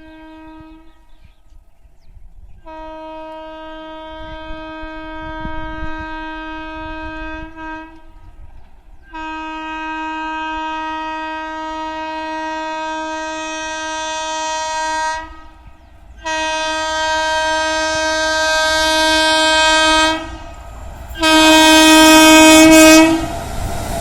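Horn of a WAP-7 electric locomotive sounding in long, repeated blasts on one pitch: the tail of one blast, then four more of roughly five, six, four and two seconds. Each blast is louder than the last as the train approaches, over a low rumble from the oncoming train.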